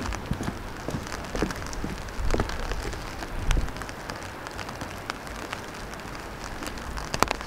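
Light rain pattering, with scattered drops ticking sharply, while footsteps thud softly on wet ground during the first few seconds.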